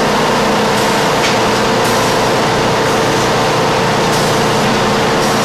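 Two-nozzle margarine filling machine and the factory machinery around it running: a loud, steady hum with a constant whine, and a few faint clicks.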